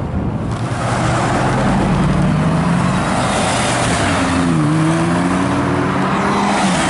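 Audi R8 accelerating hard away, its engine revving up with a brief drop in pitch about two-thirds of the way through as it shifts gear, then climbing again.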